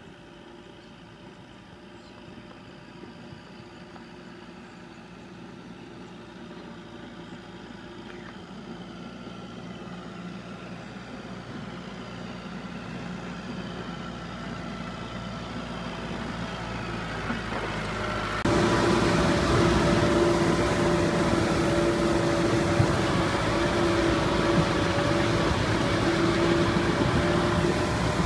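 Farm tractor's diesel engine running steadily and growing louder as the tractor drives up toward the listener. About two-thirds of the way in the sound jumps suddenly to a much louder, close-up tractor engine running on.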